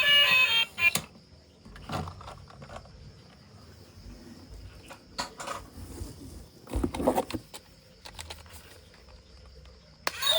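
A tune cuts off about a second in, with a sharp knock. Then comes quiet handling of plastic toys: scattered light clicks and knocks, a small cluster of them about seven seconds in. A loud tone starts again just before the end.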